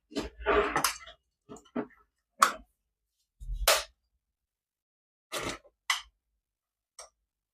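Plastic toys and packaging being handled: a short rustle just after the start, then a string of separate clicks and knocks spread through the rest, with silence between them.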